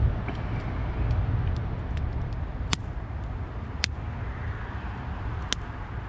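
Wood campfire burning in a metal fire bowl, crackling with scattered sharp pops, three of them louder in the second half, over a steady low rumble.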